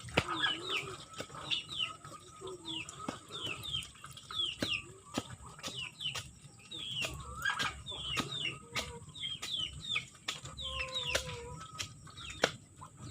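A small chicken peeping over and over in short, high, falling calls, about two or three a second, with scattered sharp clicks.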